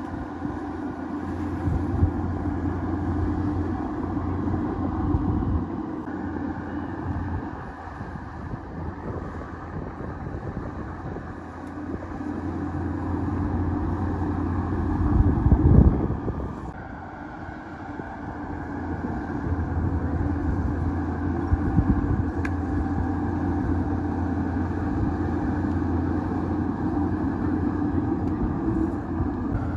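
Bulldozer's diesel engine working under load, its level rising and falling, easing off twice, with a loud swell about halfway through.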